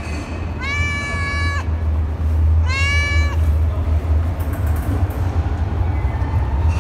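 Domestic cat meowing twice, two drawn-out meows about a second long each that rise at the start and then hold level, over a steady low rumble.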